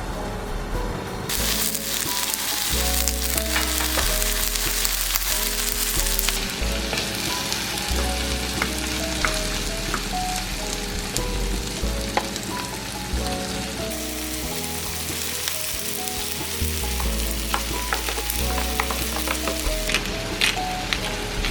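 Food sizzling and frying in a pan, a dense hiss that comes up sharply about a second in and shifts in level a few times, with light ticks and pops through it.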